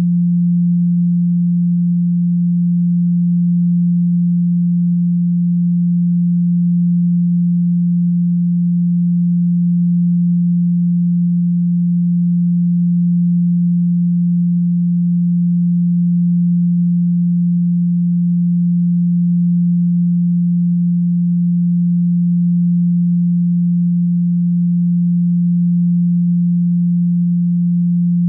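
Steady 174 Hz sine tone, the Solfeggio frequency: a single low, pure pitch held without change.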